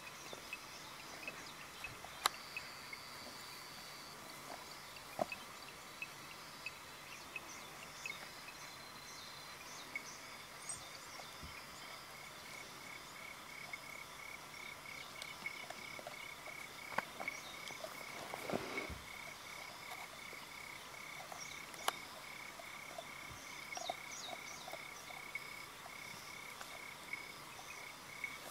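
Evening chorus of frogs and insects in a wetland, with scattered clicks and chirps; from about halfway through, one call pulses steadily about three times a second.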